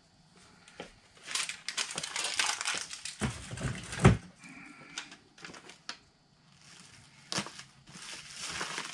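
Packing materials being rummaged through in a box on the floor: rustling and crinkling for a few seconds, ending in a loud thump about four seconds in. A single sharp click comes later, followed by more rustling as a package is handled on the table.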